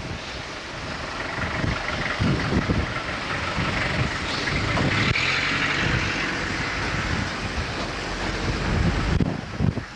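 Cars passing on a wet road, their tyres hissing, one swelling past about halfway through, with wind buffeting the microphone.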